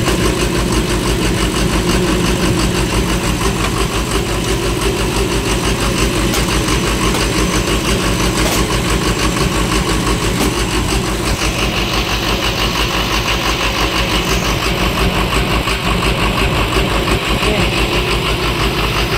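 Vehicle engine idling steadily with an even, fast pulse. A higher-pitched tone grows stronger about eleven seconds in.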